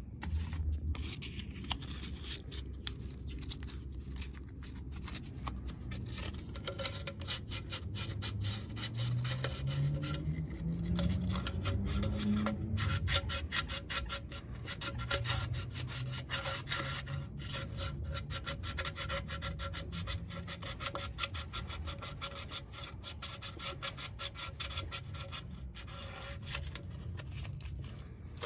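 Quick, repeated hand rubbing strokes, like scraping or sanding a surface by hand. Near the middle a low tone rises in pitch.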